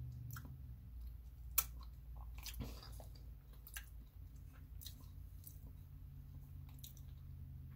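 Close-up chewing of a sticky peanut butter sandwich on soft white bread: irregular wet mouth clicks and smacks, with one sharper click about one and a half seconds in.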